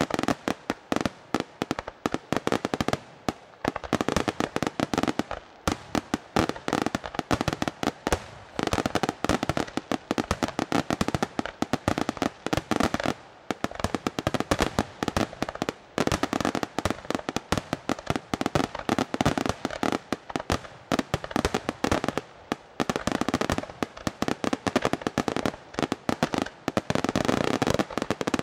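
Aerial firework shells bursting in a dense, rapid barrage of sharp bangs, with only a few brief lulls.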